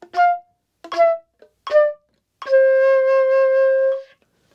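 Concert flute playing a phrase: three short separate notes stepping down in pitch, then one long held lower note of about a second and a half that ends the phrase.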